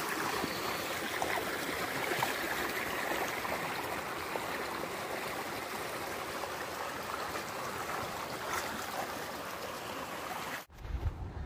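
Stream water running over rocks, a steady rushing and trickling. About three-quarters of the way through it cuts off suddenly, and low wind rumble on the microphone follows.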